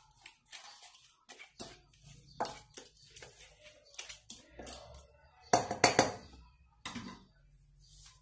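A spatula scraping and tapping against a stainless steel mixing bowl as a thick spice-and-herb marinade is stirred: a run of short scrapes and clicks, loudest just past the middle.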